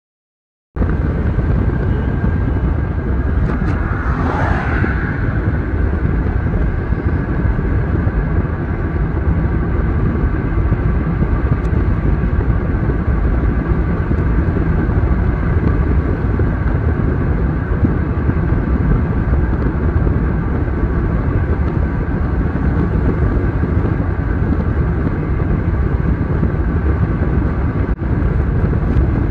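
Steady rumble of road and wind noise from a car driving at speed, starting abruptly about a second in, with a brief swell of sound about four seconds in.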